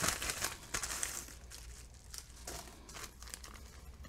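Plastic packaging crinkling as a padded mailer is handled and a small plastic bag of switches is pulled out. It is busiest in the first second, then goes on as quieter, scattered crinkles.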